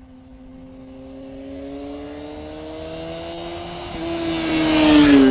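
A motorcycle approaching along the road, its engine note climbing steadily in pitch and growing louder, then dropping in pitch as it passes near the end.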